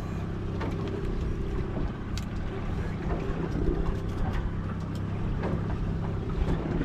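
Boat engine running steadily at trolling speed, with a few light clicks and knocks over it.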